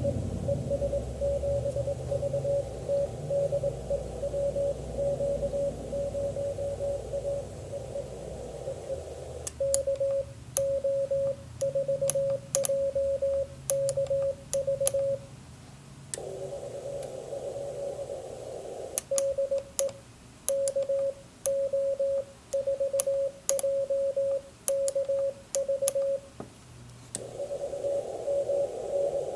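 Morse code (CW) heard through the Recent RS-978 transceiver's receiver: a single mid-pitched tone keyed on and off over band hiss. A quick run of faint dots comes first. From about ten seconds in, stronger stations key in bursts, with stretches of plain band noise between them.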